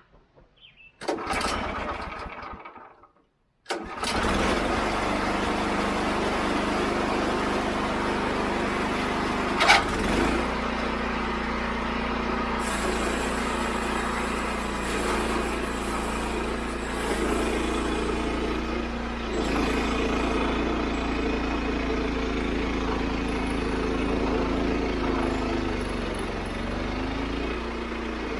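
Wood-Mizer LX25 portable band sawmill running steadily under load as it cuts a large red alder log, after a short sound that fades out and a brief gap near the start. One sharp clank about ten seconds in.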